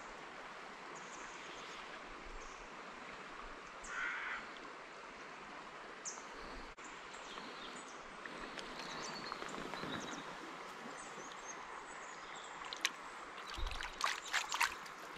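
Shallow river flowing steadily, with a short louder sound about four seconds in. Near the end come small splashes and knocks as a hand dips into the shallow water.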